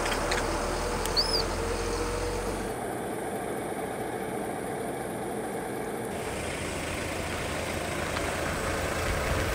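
Steady roadside rumble and hiss of vehicle traffic, with a short high chirp about a second in. The low rumble drops away about three seconds in.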